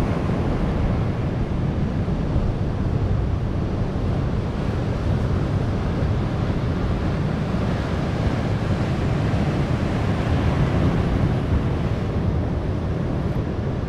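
Ocean surf breaking and washing over shoreline rocks in a steady rush, with wind rumbling on the microphone.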